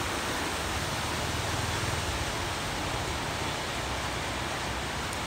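Steady rushing water noise on a flooded street: rain and running floodwater, an even hiss without a break.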